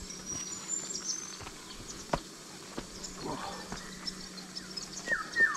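Footsteps scuffing and crunching over dry leaf litter and creek stones in scattered small clicks. Birds chirp in the surrounding bush, with a louder whistled call near the end.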